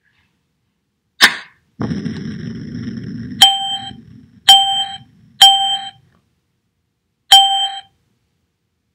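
Cartoon sound effects: a short burst about a second in, a low rumble for about a second and a half, then four short ringing dings, the last one after a longer gap.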